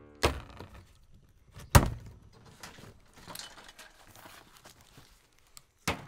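Two hard thunks, the second about a second and a half after the first and the louder, then lighter knocks and rustling from the cardboard shipping crate of a sawmill being opened and handled.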